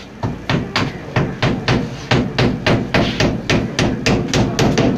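A hammer driving nails into a coffin lid to close it: a rapid, even run of about twenty sharp blows, some four a second.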